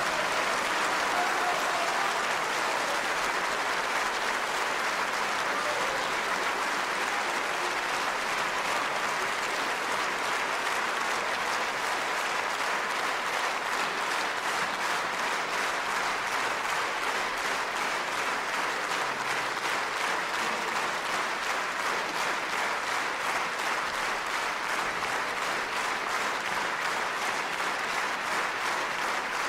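Large theatre audience applauding steadily, a dense, even wash of many hands clapping.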